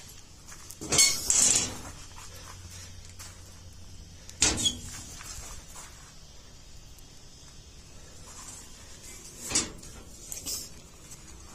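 A few short knocks and clatters over a low, even background. The loudest comes about a second in, another about four and a half seconds in, and two more near the end.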